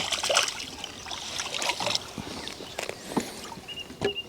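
Light splashing and dripping of water, with small knocks from handling at the water's edge.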